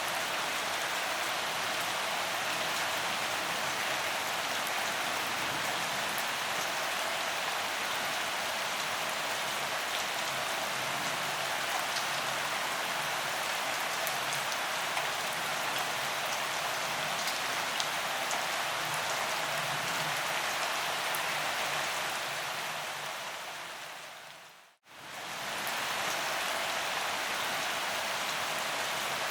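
Steady gentle rain, an even hiss with scattered individual drop ticks. Near the end it fades down to a brief silence and fades straight back in.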